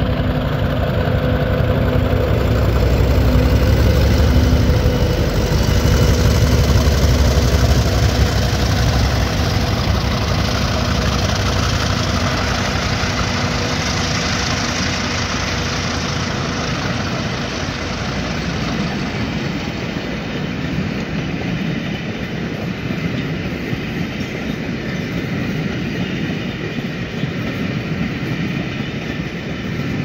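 Two Class 50 diesel locomotives with English Electric 16-cylinder engines under power as they pull away, a deep engine rumble with a steady whine. The engine sound falls away through the first half, and the rolling of the passing coaches' wheels on the rails takes over.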